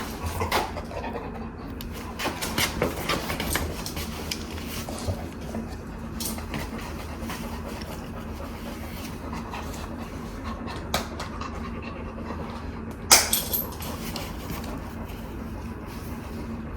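Dog sounds amid handling noise: scattered clicks and rustling, with one sharp knock about thirteen seconds in.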